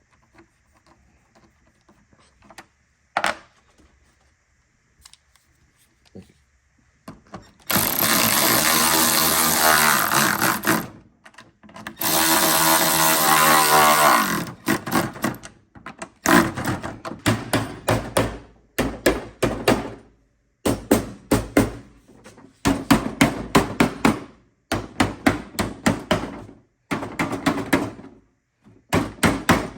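A power tool running down the locking nuts on a plastic creeper's caster bolts, with a few light clicks first. It makes two long runs of a few seconds each, then a string of short trigger bursts.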